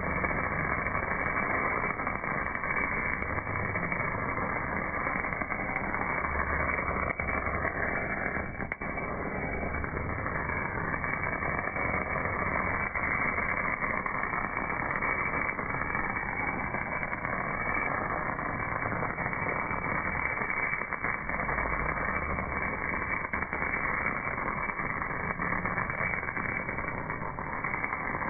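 MAG welding arc on a casting, a steady dense hiss and crackle with no pauses. It sounds dull and muffled, with nothing bright on top.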